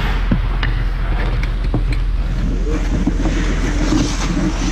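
Steady low rumble of ice-rink play picked up by a camera on the hockey net, with scattered sharp clicks and scrapes of sticks and skates on the ice.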